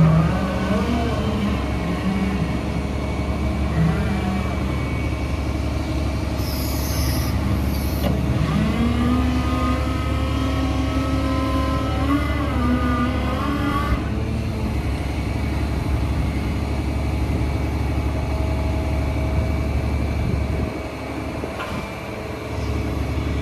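2011 Volvo EC240CL excavator's six-cylinder diesel engine running steadily while the boom and arm are worked hydraulically, its pitch rising and falling with the load. A brief hiss comes about seven seconds in.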